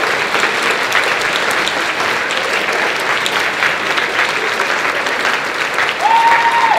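A large audience of teenagers applauding steadily. One long, held cheer rises above the clapping near the end.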